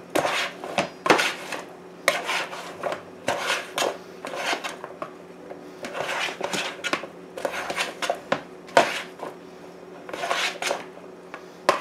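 Metal tongs tossing asparagus spears in a plastic mixing bowl to coat them in sauce: irregular clacks and rustling scrapes of the tongs against the bowl and the spears, with a sharper clack about nine seconds in.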